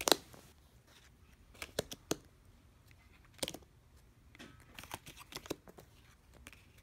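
Blue Bicycle Rider Back playing cards being dealt by hand onto piles: a string of short, dry card snaps and slaps at irregular intervals. The loudest comes right at the start, and a quick cluster follows around five seconds in.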